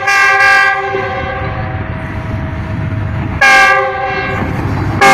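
Pakistan Railways diesel locomotive's air horn sounding two blasts of about a second each, a chord of several notes: one at the start and one about three and a half seconds in. A low steady rumble of the approaching train runs between them.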